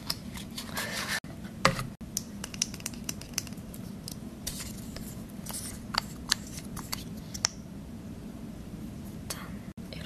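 Close-miked handling of a paper cosmetics box and a lip tint bottle: scattered light clicks, taps and rustles, among them the tint's cap and applicator wand being pulled open, with a sharper click about one and a half seconds in.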